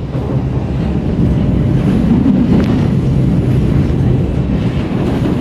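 Kawasaki C151 MRT train, fitted with permanent-magnet synchronous traction motors, running at speed, heard from inside the car: a steady rumble of wheels and running gear with a low hum, growing a little louder about a second in.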